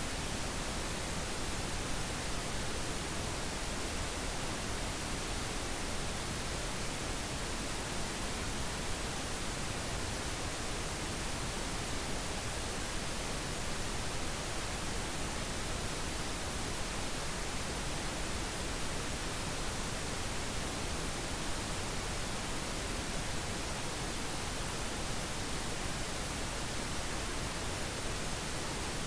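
Steady pink noise: an even, unchanging hiss spread across all pitches, with no breaks or events.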